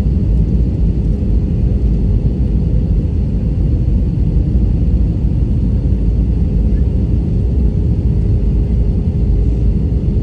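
Jet airliner cabin noise heard from a window seat over the wing: the engines and rushing air make a steady, even roar, heavy in the low end, with a faint steady hum above it, as the plane descends low over the ground.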